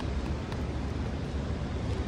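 City street ambience: a steady low rumble of traffic with an even background hiss.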